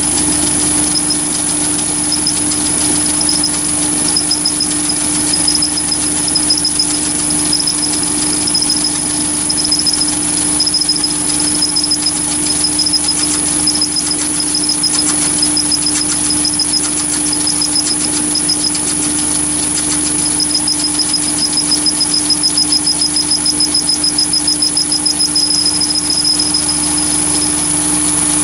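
Chinese mini lathe running an end mill that is milling a slot in a brass tube held in a toolpost vice: a steady motor hum and high whine, with an intermittent fine chatter of the cutter teeth biting the brass that stops shortly before the end.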